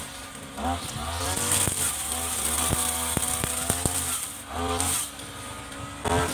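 Mitsubishi TU33 two-stroke brush cutter engine revving up and down as it cuts through grass, the pitch dropping briefly a few times, with scattered sharp ticks.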